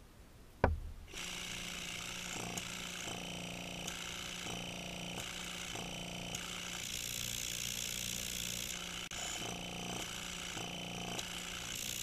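Rebuilt Thomas 2680 wobble-piston compressor switched on with a sharp click about half a second in, then running steadily. Its sound changes repeatedly as a thumb is pressed over and lifted off the intake hole, a compression check in which a good pump sucks on the thumb and the motor bogs down a little.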